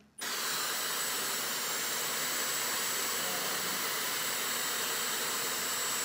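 Dyson Supersonic hair dryer switched on, starting abruptly and then blowing steadily: a rushing airflow with a thin high whine over it.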